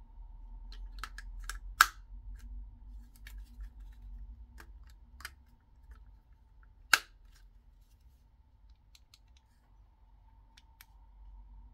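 Handling clicks and taps as the clipper and its accessories are unpacked and fitted, a run of light ticks with two sharper snaps, about two seconds in and about seven seconds in.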